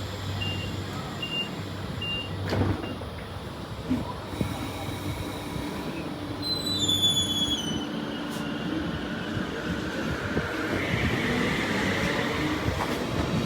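Regular high warning beeps for the first second or so, then a passing vehicle's running noise, with a brief falling squeal a little past the middle and the noise swelling toward the end before cutting off.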